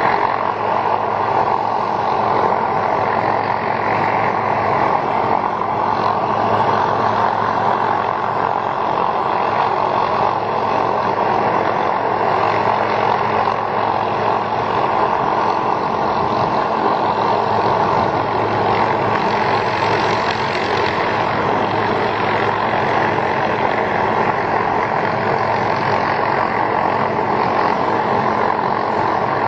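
Helicopter hovering, its engine and rotor making a loud, steady drone that does not change.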